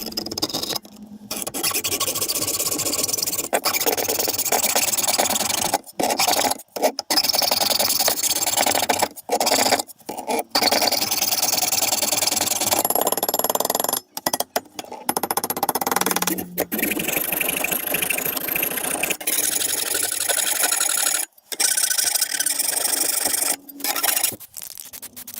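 Metal being scraped and cut with a hand tool, notching a radiator mounting bracket so that it clears a fan mounting point. The noise comes in several long stretches broken by short gaps.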